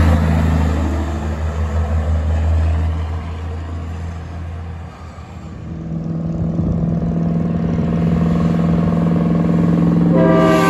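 Diesel semi tractors on the road: the engine of a passing truck is loud at first and fades away over about five seconds, then another truck's engine grows louder as it approaches. Near the end an air horn starts sounding.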